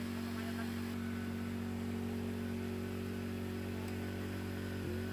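A machine running with a steady low hum that holds one unchanging pitch.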